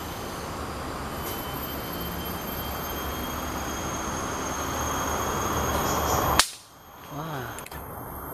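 A single sharp crack of an air rifle shot about six seconds in, over a steady background hiss with faint high steady tones. The level drops sharply for a moment right after the shot.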